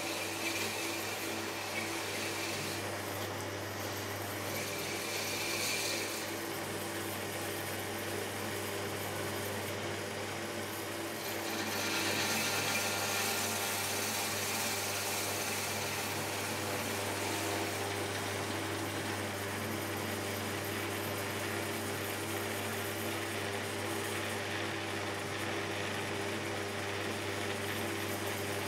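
Shimpo RK10 potter's wheel motor humming steadily, with the soft swish of wet hands pressing and rubbing stoneware clay as it spins. The swish swells twice, briefly a few seconds in and for longer from a little before halfway.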